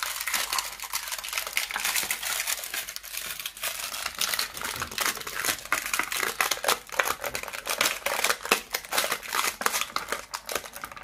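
Clear plastic toy packaging crinkling and crackling as it is squeezed and handled, a dense, irregular run of crackles.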